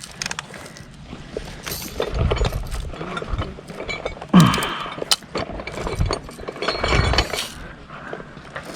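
Scattered clinks, rattles and knocks, as of gear being handled and carried, with a sharper knock about halfway through.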